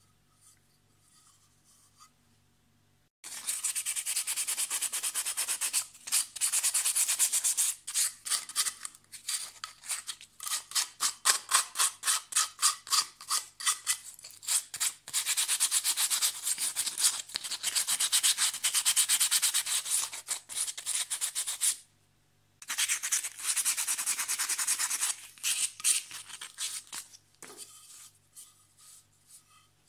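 Sandpaper scraped rapidly back and forth over a small cast-cement pot, smoothing the cured cement after the can mould has been cut away. The strokes start about three seconds in, stop briefly about two-thirds of the way through, then resume and trail off near the end.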